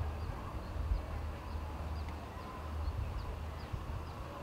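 Outdoor field ambience: a steady low rumble with faint, short, high chirps repeating every half second or so.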